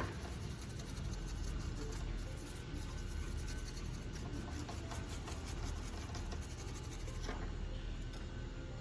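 Circuit board being scrubbed with thinner to clear residue after soldering: quick, scratchy rubbing strokes that stop shortly before the end.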